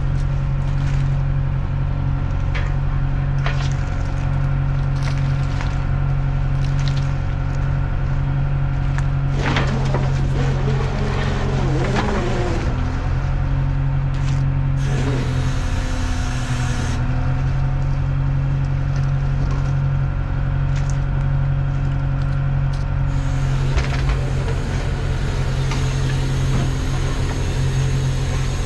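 A fishing boat's engine running steadily, with scattered knocks and a brief hiss a little past halfway.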